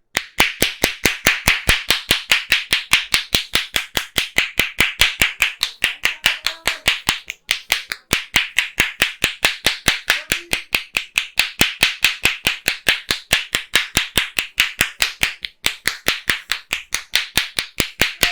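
A barber's hands striking the body in a percussive massage: a rapid, even run of sharp claps at about five a second. It breaks off briefly about halfway through and again about three quarters of the way in.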